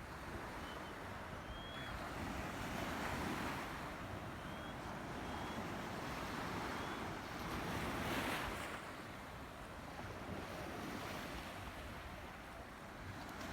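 Sea waves washing onto the shore, surging twice, about three and eight seconds in. A few faint, short, high chirps sound over them in the first half.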